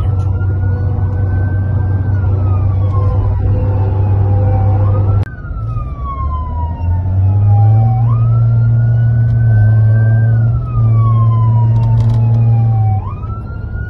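Emergency vehicle siren in a slow wail, rising over a couple of seconds and falling over several, heard from inside a car following the convoy, over a steady low drone of engine and road noise. The sound cuts off abruptly about five seconds in and the wail picks up again.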